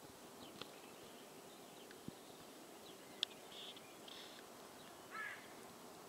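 Faint outdoor ambience with a few short bird calls, the clearest a brief call just after 5 seconds in, and a few scattered sharp clicks, the loudest a little past 3 seconds in.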